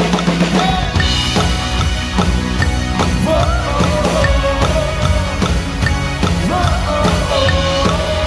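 Live worship band playing a fast pop-rock song at about 148 beats a minute, the drum kit to the fore with kick and snare keeping a steady beat. A held melody line comes in about three seconds in.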